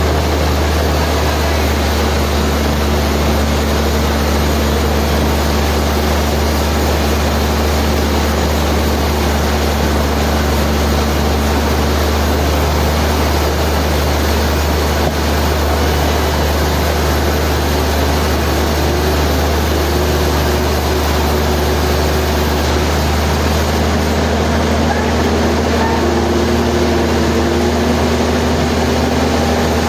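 Sawmill machinery running steadily: a constant deep hum with a dense mechanical noise over it, unbroken throughout.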